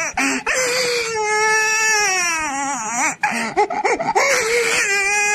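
A baby crying: long wailing cries that slide up and down in pitch, broken by short gasps and choppy sobs about three to four seconds in.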